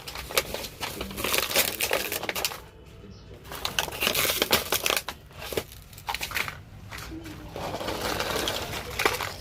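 Plastic packaging crinkling and rustling as a toy set is unboxed by hand, mixed with sharp clicks and taps.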